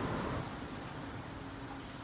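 Typhoon wind gusting around a high-rise building, heard from indoors as a steady rushing noise. The gust eases off about half a second in.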